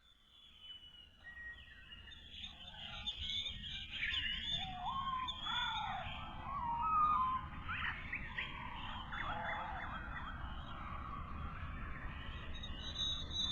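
Birds chirping and whistling, many short notes sliding up and down, over a steady low rush. It fades in over the first few seconds.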